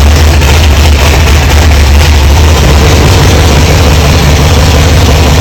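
Rock bouncer buggy's big-block V8 idling, loud and steady, with a heavy low rumble through its exhaust. It sounds wilder than the engine is built to be.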